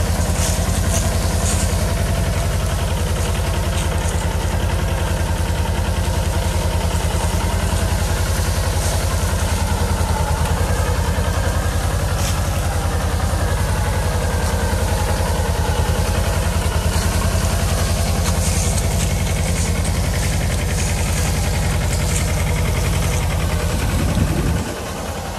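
Mahindra Jivo 305 DI tractor's diesel engine running steadily with an even firing beat, pulling a field cultivator. The sound dips briefly near the end.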